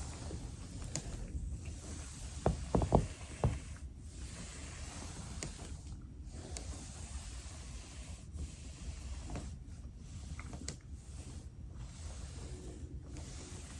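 Steady hiss with rubbing and shuffling from a body working over a foam roller, and a few soft thumps about three seconds in.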